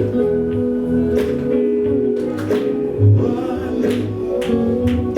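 Live gospel group performing: singing over sustained organ or keyboard chords, bass and drums with a regular beat, in a large hall.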